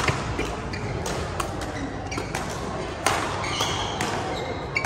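Badminton rackets striking a shuttlecock during a rally: several sharp cracks, the loudest at the very start and about three seconds in, with a few short squeaks of court shoes. A steady hubbub of other games and voices echoes around the large hall.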